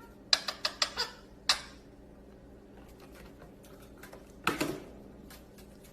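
A quick run of about five sharp taps in the first second, another single tap about half a second later, then a brief scuffling noise about four and a half seconds in.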